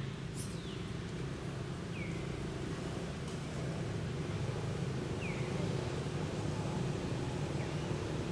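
A steady low engine-like hum runs throughout. A few short, high chirps fall in pitch, spaced two to three seconds apart.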